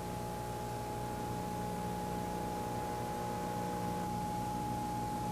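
Steady electrical hum with a thin, faint high steady tone and light hiss, the background of an old recording's soundtrack.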